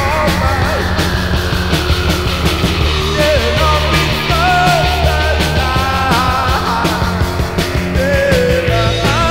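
Post-punk rock track with a steady drum beat, a bass line and a wavering lead melody.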